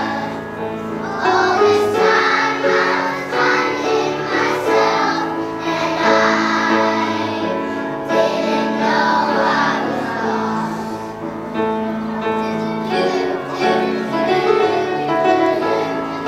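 Children singing together as a choir over music, in long held notes.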